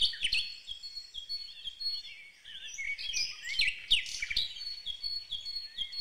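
A recording of songbirds: several birds chirping and singing at once, a busy chorus of short high chirps and trills that starts abruptly and keeps going without a break.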